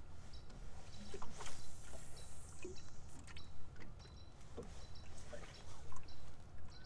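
Open-air ambience on the water: a steady low rumble, with a short high chirp repeating about every half second and scattered light clicks.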